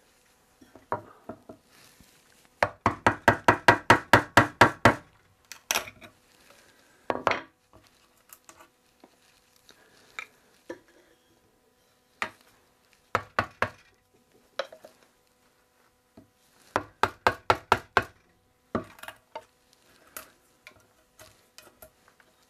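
Chisel driven with sharp blows to chop out the old glued tenon remnant from a chair-seat mortise. A quick run of about a dozen knocks at roughly six a second comes a few seconds in, followed by shorter runs and single knocks.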